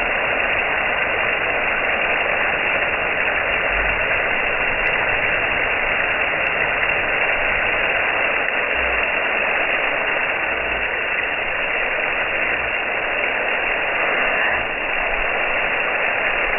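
Steady rushing hiss of water spraying from a garden hose, dull, with no high end.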